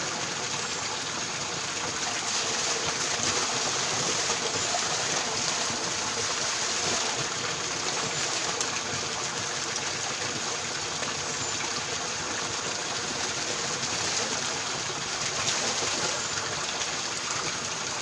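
Spring water pouring steadily from a bamboo pipe and splashing into a shallow rocky pool.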